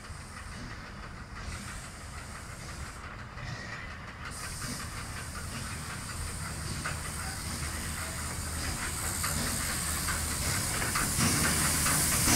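Steam tank locomotive running into the station with its coaches, its steam hiss growing steadily louder as it draws near.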